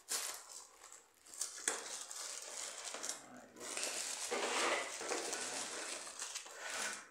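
Plastic bag crinkling and cardboard box rustling and scraping as hands shift a bagged tool around and lift it out of the box.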